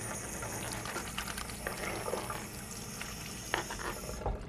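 A knife scraping and tapping sliced Polish sausage off a plastic cutting board into a glass bowl: a run of small, light clicks and taps over a pot bubbling steadily on the stove.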